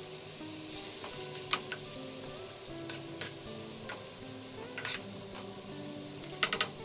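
Chopped onion sizzling steadily as it fries in olive oil in a nonstick pan, stirred with a silicone spatula that knocks sharply against the pan a few times.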